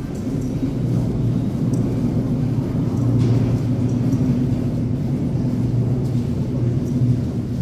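Steady low mechanical rumble with a hum, typical of subway machinery such as a train or an escalator. It swells over the first second, then holds level, with faint light ticks above it.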